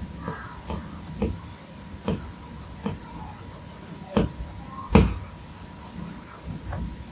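Apple Pencil tip tapping and knocking on the iPad Pro's glass screen as strokes are laid down, a string of short, irregular taps with the heaviest knock, a dull thud, about five seconds in.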